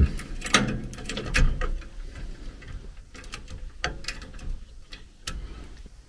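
Scattered small clicks and taps of a screwdriver and fittings worked by hand at a furnace gas valve, as a pressure-tap screw is snugged into the aluminum valve body. The clicks are louder and closer together in the first two seconds.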